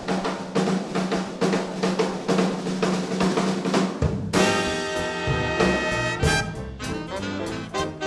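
Swing big band starting a number: a drum-kit intro of quick, steady snare and tom strokes, then about four seconds in the horn section and upright bass come in together on a held chord and the band swings into the tune.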